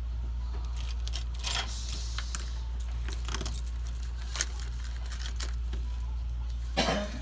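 Light rustling and small clicks of papers and parts being handled, with a sharper click a little after the middle and a louder rustle near the end, over a steady low hum.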